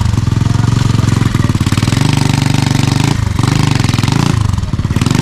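Small engine of a homemade motorbike running loud, a fast stutter of firing pulses, its revs dipping briefly twice, about three seconds in and again about four and a half seconds in.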